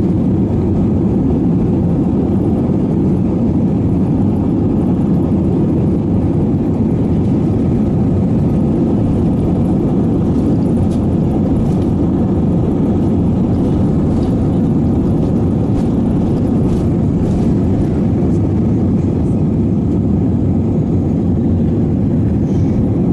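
Steady, loud jet airliner noise heard from inside the passenger cabin: the engines and rushing air make an even, deep rumble.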